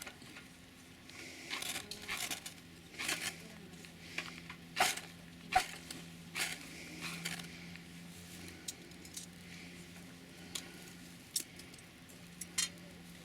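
Handling noises: about a dozen separate clicks, taps and rustles of small objects being moved, the loudest a little before five seconds and just after five and a half, over a steady low hum.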